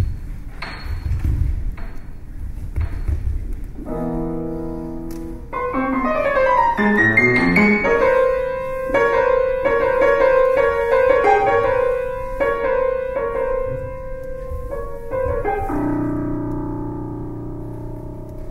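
Solo piano playing live. After a few soft low thuds, it holds a chord, plays a quick rising run, then a repeated-note figure in the middle register, and ends on a sustained low chord.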